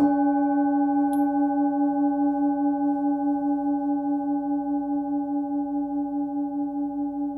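Hand-forged singing bowl, 16.5 cm across and pitched at about 290 Hz (between C# and D), struck once and left to ring: a low steady hum with higher overtones above it, wavering gently in loudness as it slowly fades.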